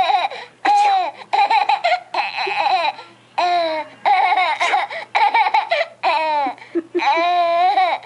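A baby laughing in a run of short, high-pitched bursts, one after another with brief pauses for breath.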